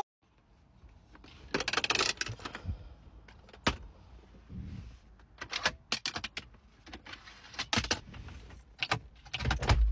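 Irregular clicks, knocks and rustling of things being handled inside a car's cabin.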